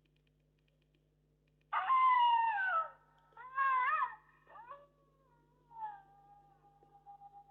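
A ringtone played through a Philips E106 feature phone's small speaker: a pitched call sliding down in pitch for about a second, a second shorter wavering call, then a few faint fragments and a held tone near the end.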